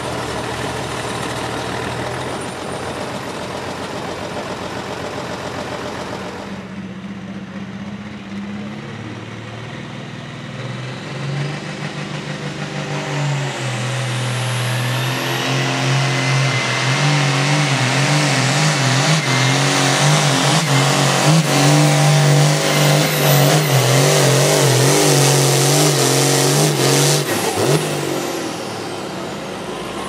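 Hot Farm class pulling tractor's diesel engine making a pull. It runs steadily at first, revs up about a third of the way in, then runs flat out, loud and steady, with a whine rising in pitch above it. It backs off near the end.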